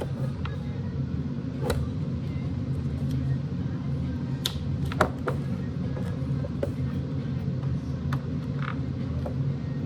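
A few sharp snips and clicks as the hairdryer's power cord is cut through with cutters, the clearest about two seconds in and around five seconds in, over a steady low background hum.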